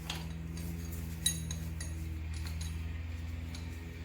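Metal hand tools clinking and tapping against metal engine parts, with one sharp ringing clink about a second in, over a steady low hum.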